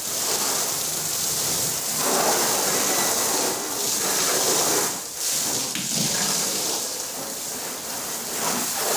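Spray from a garden hose, fanned out by a hand over its end, hissing and splashing steadily onto the metal body and windows of a hatchback car as the shampoo is rinsed off. The spray is heaviest from about two to five seconds in.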